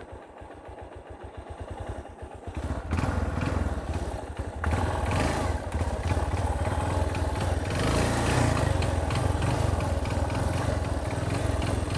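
Motorcycle engine idling with an even low pulse, then opened up and ridden from about three seconds in, running louder with clattering over rough ground.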